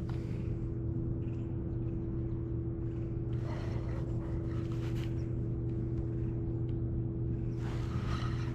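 A steady low motor hum holding a constant pitch, with faint water and handling noise over it.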